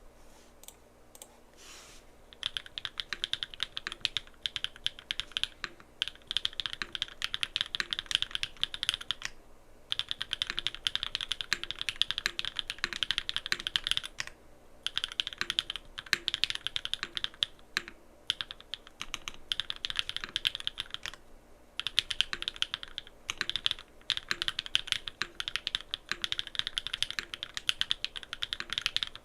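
Typing on a Frog Mini mechanical keyboard with SW x Gateron Deeping switches, aluminium plate and full foam: a few single keystrokes, then fast, continuous runs of typing broken by brief pauses.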